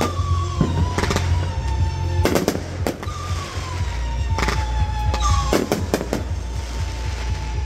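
Aerial fireworks shells bursting: a string of sharp bangs at uneven intervals, a single one here and there and several in quick clusters.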